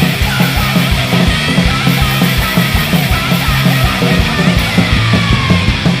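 Hardcore punk song: fast, driving drums with distorted electric guitar and bass.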